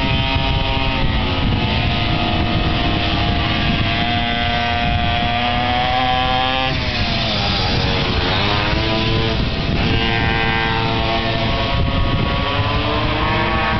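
Small two-stroke minimoto pocket-bike engines running at high revs as the bikes race past. The pitch climbs, then drops sharply as a bike goes by about seven seconds in, and another bike sweeps past a few seconds later.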